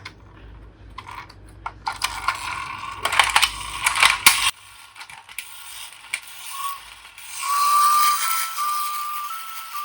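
Plastic toy cars clicking and rattling as they are handled, in quick clusters of sharp clicks. About seven seconds in, a toy's electronic siren starts, a steady tone stepping back and forth between two close pitches.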